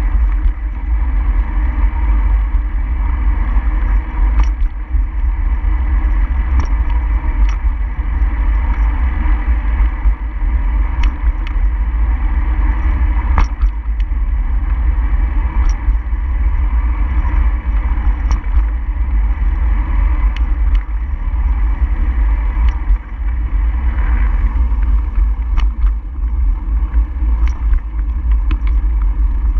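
Steady low rumble of wind and road noise from a camera moving along a road, with scattered light clicks and rattles.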